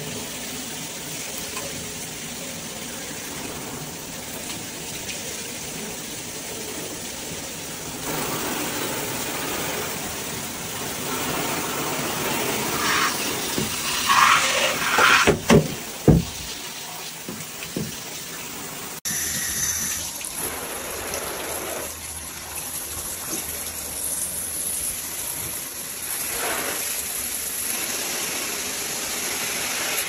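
Water spraying from a handheld shower head against the shower walls, a steady hiss, with a few louder bumps around the middle.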